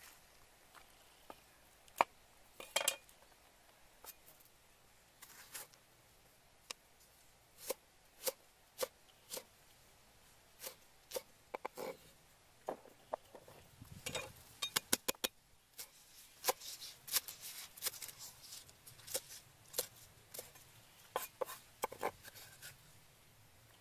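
Large kitchen knife cutting vegetables on a thick round wooden chopping block: irregular knocks of the blade against the wood, coming in quicker runs from about the middle onward.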